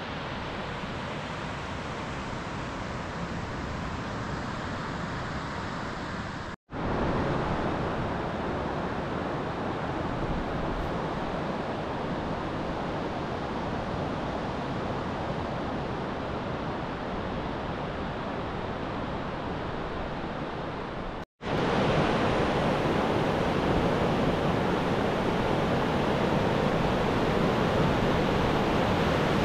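North Sea surf washing onto a sandy beach: a steady rush of breaking waves. It drops out for an instant twice and is louder in the last stretch, at the water's edge.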